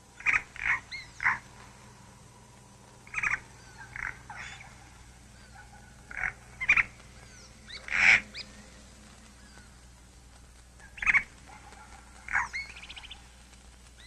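Birds calling: short, loud calls in twos and threes every couple of seconds, with faint higher chirps between them.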